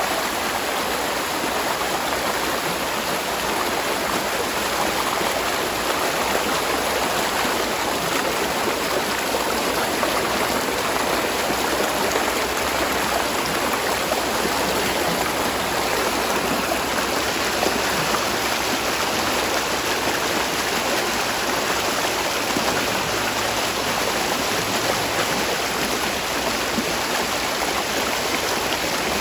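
Spring-fed stream of water rushing and splashing over rocks, a steady, unbroken flow.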